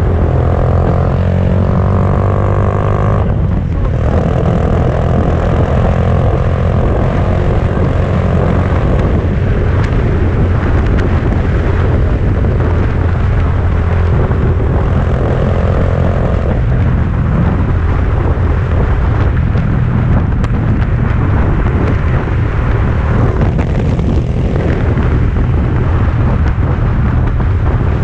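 2018 Honda Grom's 125 cc single-cylinder engine running steadily at road speed through a Yoshimura RS-2 exhaust, with road and wind noise, and a brief dip about three seconds in.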